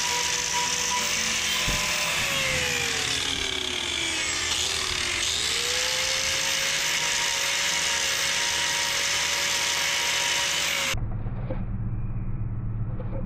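Angle grinder with a trimming disc grinding down a cow's hoof claws; its motor whine sags in pitch for a few seconds as the disc bites into the horn, then climbs back. The grinding cuts off about two seconds before the end, leaving a low hum.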